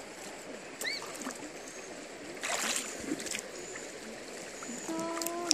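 Shallow river water sloshing and splashing as people and a baby move in it, with one louder splash about halfway through. A short held voice sound near the end.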